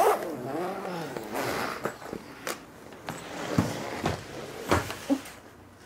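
Hard-shell suitcase being unzipped and opened: a short rasp, then several sharp knocks and clicks as the shell and lid are handled and swung back.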